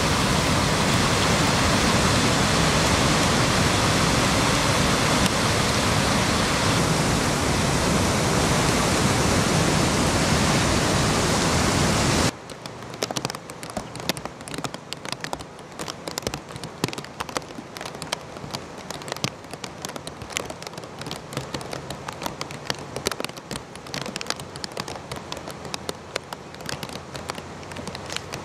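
Floodwater pouring over a dam spillway: a loud, steady rush. About twelve seconds in it cuts off abruptly to a quieter hiss with dense, irregular ticks like rain pattering.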